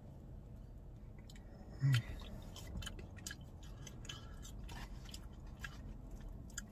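A man chewing soft, cheese-covered fries with wet mouth clicks and smacks over a steady low hum, with a short hummed "mm" about two seconds in.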